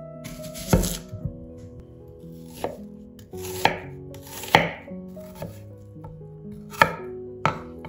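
Kitchen knife cutting through vegetables and striking a cutting board: about six sharp strokes at uneven intervals, with a few softer taps between them.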